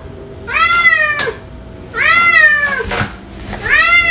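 A domestic cat meowing three times: drawn-out meows of about a second each that rise and then fall in pitch, with short pauses between them.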